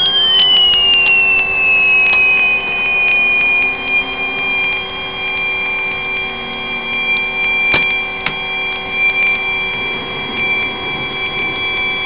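Loudspeaker driven by the output of a homemade pulse-motor generator coil. It gives a high-pitched electronic whine that glides down over the first couple of seconds and then holds steady, alongside a second steady tone and a lower hum, with scattered sharp clicks. The whine's pitch follows the frequency the device is pulsing at.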